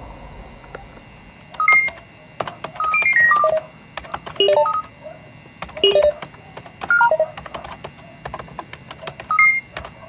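Computer keyboard clicking in quick runs, mixed with short electronic beeps at several different pitches, in bursts every second or two.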